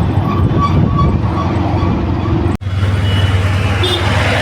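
Busy road traffic: motor vehicle engines running with a steady low hum, cutting out for an instant a little over halfway through.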